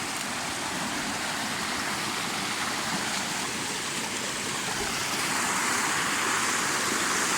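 Rushing mountain river water: a steady, even roar that grows a little louder toward the end.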